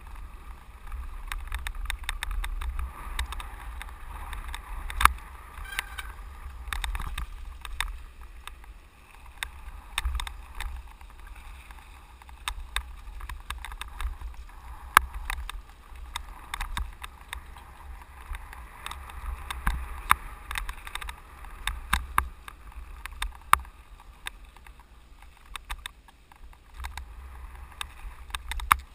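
Mountain bike rolling fast downhill, first over wooden boardwalk planks and then on a dirt and rock trail: a steady rush of tyres and wind, with frequent sharp rattles and knocks as the bike jolts over bumps.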